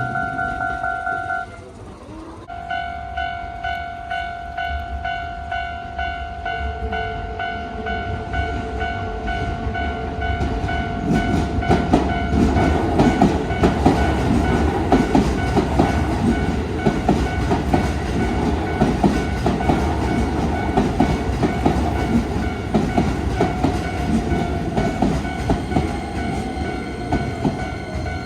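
Japanese level-crossing warning bell ringing in a rapid repeating tone. It breaks off briefly about two seconds in, then starts again. From about ten seconds in, an electric train passes through the crossing, wheels clattering over the rail joints, loudest a few seconds later while the bell keeps ringing.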